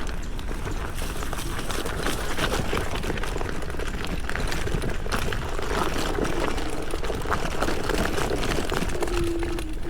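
Electric scooter riding over loose gravel: a steady rumble of small tyres on stones, with many small clicks and crackles and wind noise on a chest-mounted mic. A brief steady hum comes near the end.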